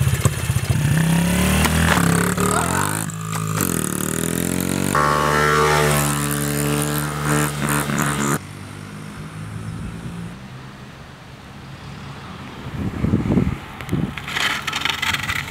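Honda CRF50 mini dirt bike's small four-stroke single-cylinder engine running hard under acceleration. The engine note climbs and falls back twice as it shifts up through the gears. About eight seconds in, the engine sound cuts off abruptly to a quieter stretch of outdoor noise.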